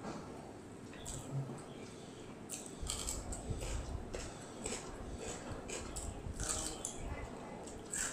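Close mouth sounds of a person eating by hand: wet chewing with irregular lip-smacking clicks.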